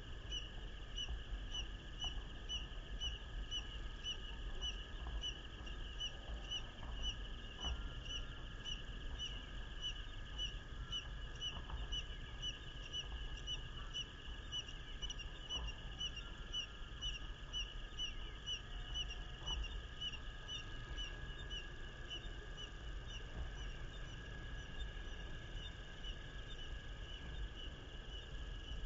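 A small animal's high chirp, repeated evenly about two or three times a second, over a steady high drone and a low rumble.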